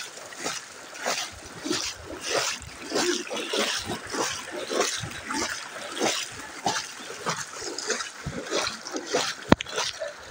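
Footsteps splashing and sloshing through shallow floodwater, a splash about every half second, with one sharp knock near the end.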